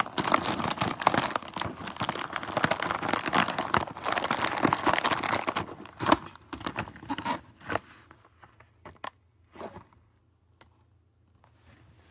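Crinkling of a plastic chip bag being handled and pushed into a paper treat-bag holder, dense for about six seconds, then thinning to a few scattered crinkles.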